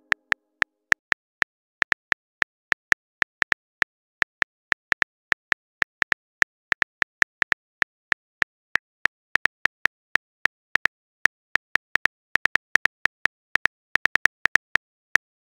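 Phone keyboard key clicks, one short crisp tick per letter as a message is typed, at an uneven pace of about three or four a second with a few brief pauses.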